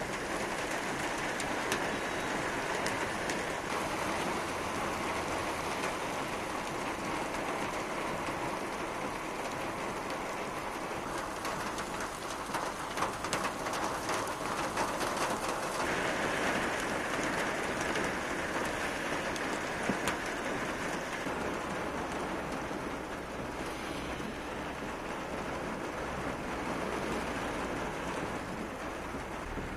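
Heavy rain pouring steadily onto a wet road, with the hiss of traffic driving through it. A patch of sharper drop impacts comes about midway.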